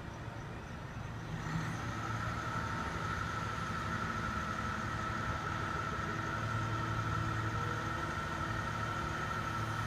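Truck-mounted crane's engine running steadily while the crane works a concrete wall panel. About a second and a half in, the engine picks up and a steady high whine joins it.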